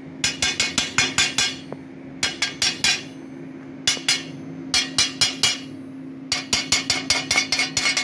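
Quick runs of sharp metal-on-metal taps as a hand tool chips dross off the edges of a plasma-cut steel plate. The runs come in clusters with short pauses between them. A steady low hum runs underneath.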